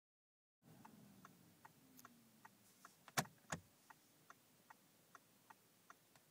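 Audi S8's turn-signal indicator ticking steadily inside the cabin, about two and a half ticks a second, with two louder clicks about three seconds in.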